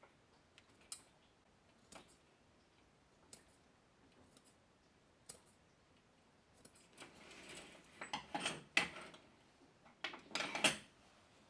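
Sparse small clicks as a thin blade works at the black end of a flexible shower hose, then louder spells of scraping and rattling as the hose and its plastic and metal fittings are handled on a tabletop, the loudest near the end.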